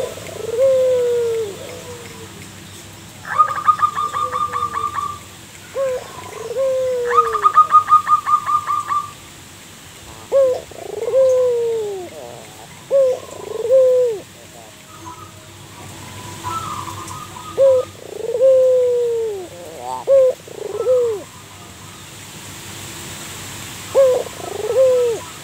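Zebra dove singing its cooing song, about eight phrases in all, each a short note followed by a longer falling coo. Two rapid, higher trills of clicking notes come in about three and seven seconds in.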